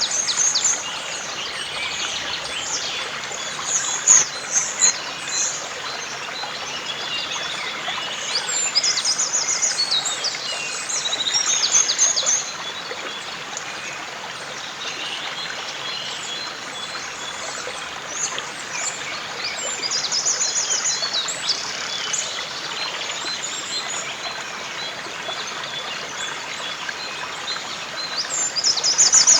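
Woodland birds singing and calling over the steady rush of a river. Many short chirps throughout, with a fast trilling phrase that comes back about every ten seconds.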